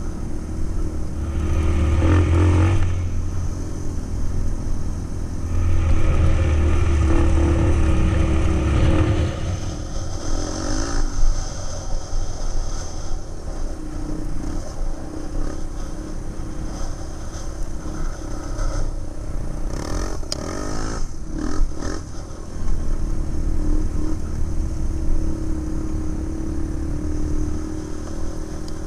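Quad bike (ATV) engine running under throttle while riding a dirt track, pulling harder about two seconds in and again from about six to nine seconds, then easing to a steadier run. A few knocks and rattles come around twenty seconds in.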